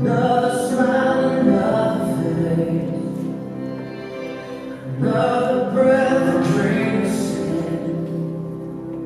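Slow music with sustained sung phrases, a new phrase swelling in at the start and another about five seconds in.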